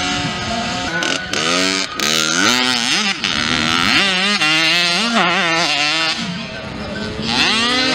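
Mini motocross bike engines revving hard and easing off, the pitch climbing and falling again and again as the bikes accelerate through the turns.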